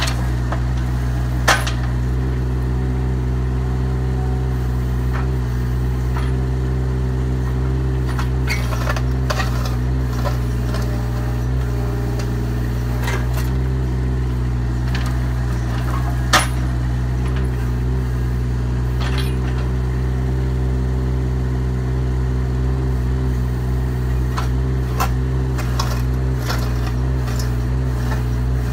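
Bobcat E20 mini excavator's diesel engine running steadily as it digs a trench in hard dirt. Sharp knocks and clanks of the bucket are scattered through, the loudest about a second and a half in and again past the halfway mark.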